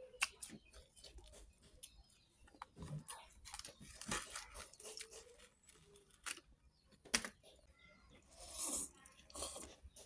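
Close mouth sounds of eating instant noodles: wet chewing with clicks and lip smacks in irregular short bursts, and slurping of noodles near the end.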